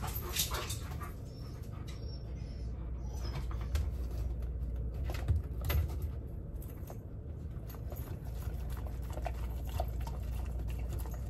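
Alaskan malamute licking and eating soft food from a plastic tub: scattered small wet clicks and smacks over a steady low hum.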